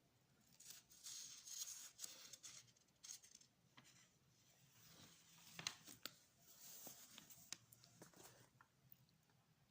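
Faint rustling with scattered sharp clicks, in two stretches.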